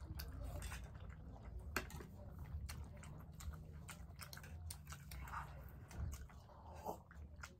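People chewing and eating momo dumplings: scattered soft clicks and smacks of mouths and eating, over a steady low hum.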